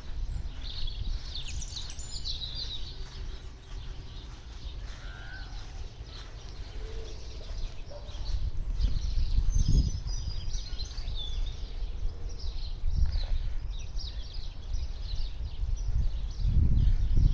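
Small songbirds chirping and twittering in quick high calls, busiest in the first few seconds and again in the middle, over a steady low rumble that swells briefly about ten seconds in and again near the end.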